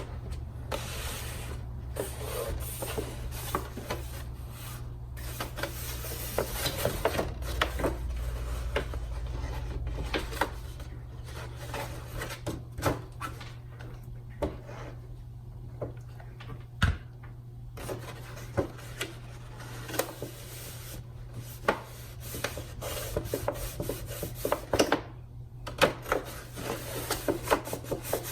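Cardstock paper petals rustling and rubbing as they are handled, with many scattered light taps and clicks, over a steady low electrical hum.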